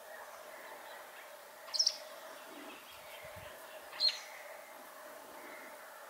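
White wagtail giving two short, high chirps about two seconds apart, over a faint steady background hum.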